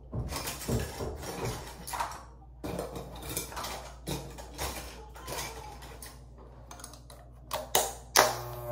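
Irregular clicks and clatters of small grooming tools being handled, such as a beard trimmer and its attachments, over a faint steady low hum; the loudest clicks come near the end.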